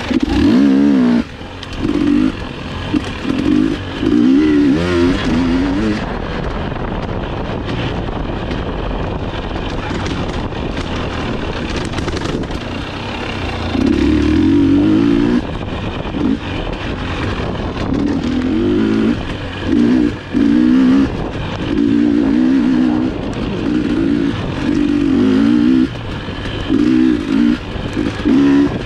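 GasGas EX250 two-stroke dirt bike engine under way, revving up and dropping back in short bursts as the throttle is worked, with a steadier stretch of lower running in the middle.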